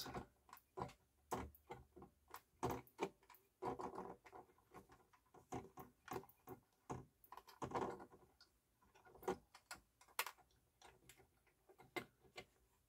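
Faint, irregular clicks and taps of a hand tool and small metal parts being handled while working on a turntable's cueing lift mechanism, a few clicks every second with short pauses between.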